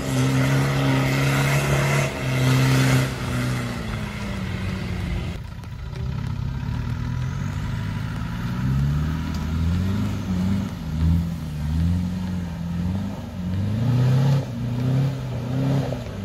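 Land Rover Discovery engine working hard at steady high revs over a broad rushing noise as it climbs a muddy slope. About five seconds in, a sudden change to a second Discovery's engine revving up and down repeatedly as it climbs a rutted track.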